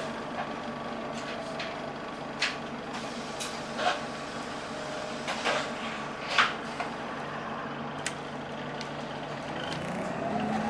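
Cabin of an Alexander Dennis Enviro 400 hybrid bus with a BAE Systems hybrid drive, holding a steady low drone at standstill, broken by a handful of sharp knocks and rattles from the bodywork and fittings. Near the end a rising whine sets in as the bus pulls away.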